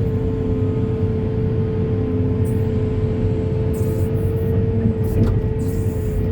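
Diesel engine of a heavy earthmoving machine running steadily under load, a low rumble with a steady whine over it, and a few short hissy scrapes.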